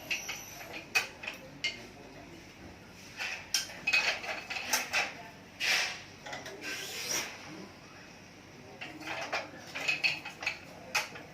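Irregular light metallic clicks and clinks with a few short rasping pulls, from a racket being strung on a manual stringing machine: clamps and tools handled and string drawn through.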